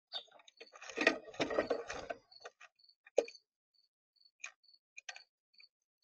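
Birds at a feeder: a cluster of clattering and scuffling knocks about a second in, then scattered single taps, with a short high chip note repeating every half second or so.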